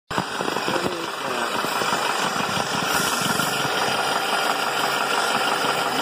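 BMW engine running with a continuous rattle, the sign of a faulty VANOS (variable valve timing) cam gear.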